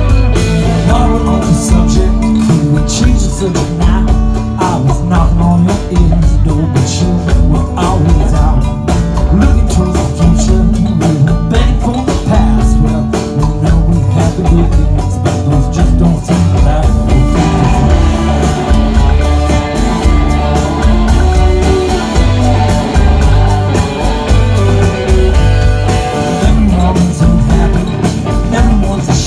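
Live rock band playing loud amplified electric guitars and drums through a concert PA, heard from the audience.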